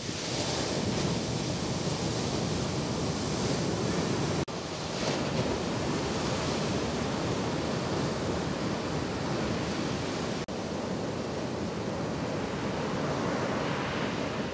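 Ocean surf breaking and washing ashore, a steady rush of water noise, with two very brief dropouts about four and a half and ten and a half seconds in.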